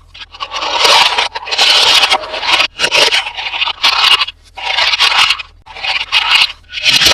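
Toy packaging being handled and opened by hand: a series of about seven scratchy scraping and crinkling strokes, each under a second, with short pauses between them.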